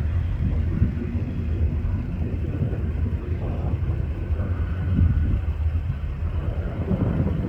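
Robinson R44 helicopter moving away after its flyby: a steady low rumble from the rotor and engine.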